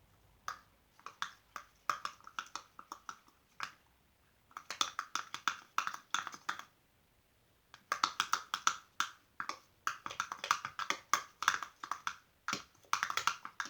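Freshly activated slime being mixed, with rapid sticky clicks and squelches in bursts and two short pauses. The glue and activator are still combining, not yet set into finished slime.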